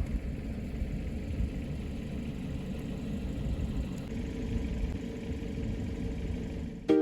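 Steady low rumble of a car driving, heard from inside the cabin. Music starts right at the end.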